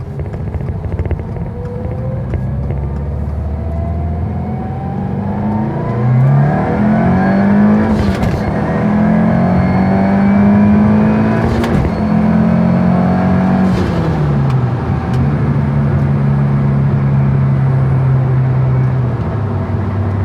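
2022 Subaru WRX turbocharged flat-four with a turboback exhaust on a wide-open-throttle pull through 2nd, 3rd and 4th gear. The engine note climbs steadily, breaks at two upshifts, then falls as the driver lifts off and settles to a steady drone near the end.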